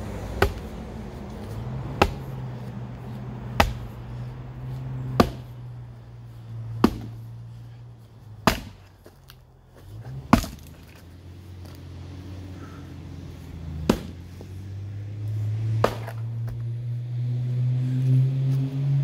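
Axe chopping firewood: nine sharp strikes into wood, about one every second and a half, with a longer pause in the middle. A steady low hum runs underneath and grows louder near the end.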